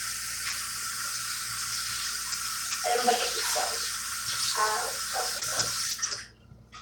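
Kitchen sink tap running steadily while dishes are washed by hand, then shut off about six seconds in.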